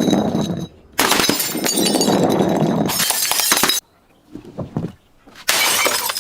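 Glass bottles being smashed and crushed, glass shattering and crunching in three loud bursts that each cut in and off abruptly; the middle one is a long grinding crunch of nearly three seconds.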